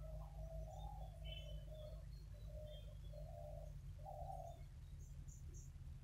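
A bird cooing: a run of about five low, hooting notes that stops about four and a half seconds in, with faint high chirps of small birds over a steady low rumble.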